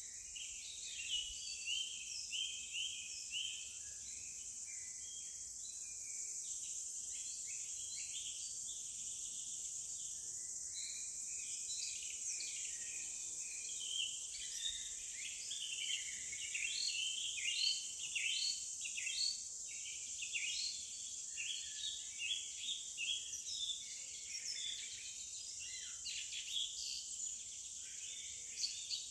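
Forest ambience: many birds singing and calling in short chirps and trills, over a steady high-pitched drone of insects.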